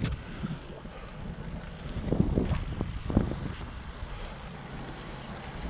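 Wind rumbling on the microphone and road-bike noise during a steady uphill climb, with a few louder bursts about two to three seconds in.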